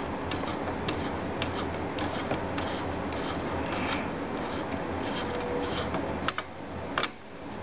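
Hands handling desktop computer parts: rubbing and scattered light clicks and taps over a steady low hum, with two sharper clicks near the end.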